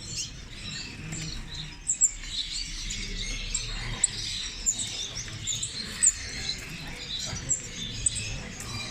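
Many small caged songbirds chirping and trilling together, a dense, continuous chorus of short high notes with a few sharper, louder calls standing out.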